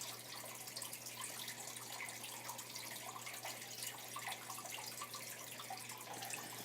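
Faint, steady trickling or running water, with a constant low hum beneath it.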